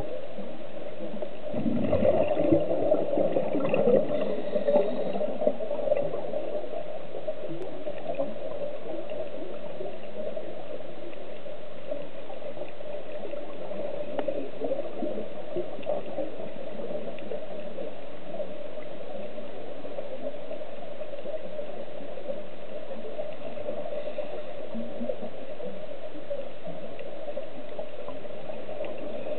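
Underwater sound picked up through a dive camera's housing: a steady hum, with a stretch of bubbling gurgles from a scuba diver's exhaled breath about two seconds in.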